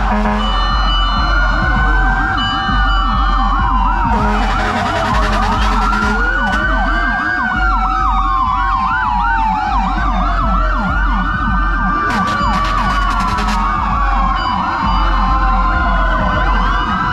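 Several fire and rescue vehicle sirens sounding at once: slow wails rising and falling about every five seconds overlap fast yelps.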